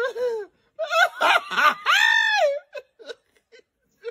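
A man laughing hard in high-pitched, wailing peals: a short falling whoop at the start, one long loud peal from about a second in, then a few short breathy snickers near the end.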